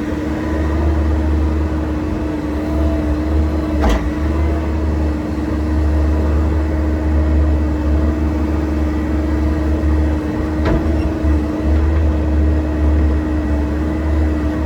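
Excavator's diesel engine running steadily under load with a constant drone, and two sharp knocks, about four seconds in and near eleven seconds.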